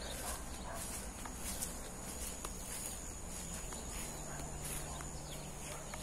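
Faint outdoor background noise: a steady hiss with a few light clicks and a thin, steady high tone.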